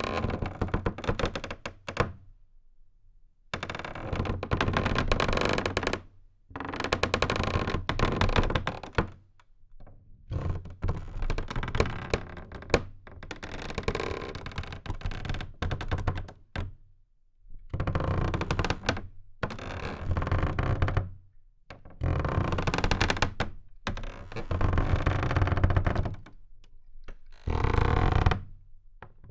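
Old wooden fence boards, screwed together, being flexed and twisted to creak and groan. The creaks come in a series of passes of two to three seconds each, separated by short pauses.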